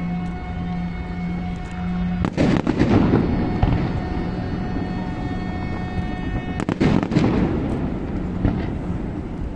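Fireworks going off in rapid volleys of bangs and crackles, densest about two seconds in and again about seven seconds in, over music with long held notes.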